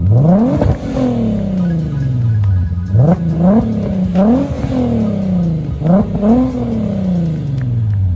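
Swapped 3.6-litre VR6 engine of a 1992 Corrado SLC being revved in repeated quick throttle blips, each rev climbing sharply and then falling back slowly toward idle. It breathes through custom headers, a resonator and a Magnaflow muffler.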